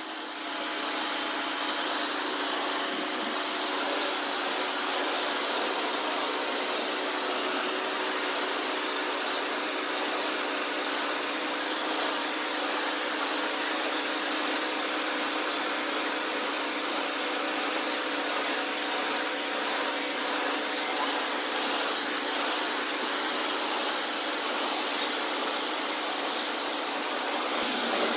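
An 1800 W electric pressure washer running without a break: a steady motor-and-pump hum under the loud hiss of the high-pressure water jet spraying a concrete slab.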